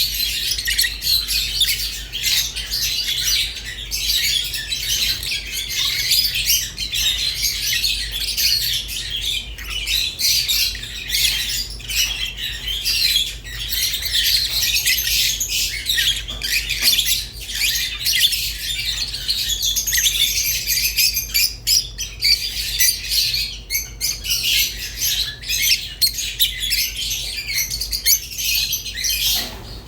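Rosy-faced and Fischer's lovebirds chirping and squawking without pause, many high calls overlapping into a dense chatter.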